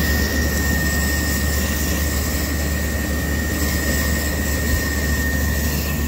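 Garden-hose spray nozzle jetting water onto an air-conditioner condenser coil to rinse it: a steady spraying hiss over a constant low drone, with a thin steady high tone throughout.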